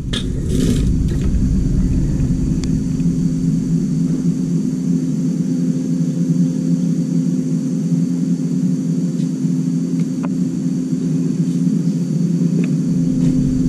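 Steady machine hum from running electrical equipment, with a few handling clicks and rustles about a second in.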